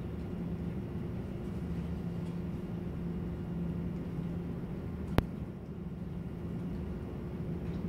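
Steady low electrical or machine hum of the room, with a single sharp click a little past five seconds in.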